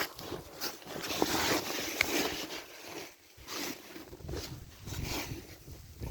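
Footsteps crunching in snow, uneven, about one or two a second, with a couple of sharp clicks in the first two seconds.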